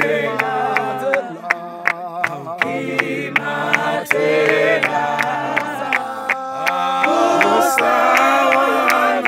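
Church choir singing together in harmony, several voices holding and shifting notes, with a sharp regular beat about twice a second.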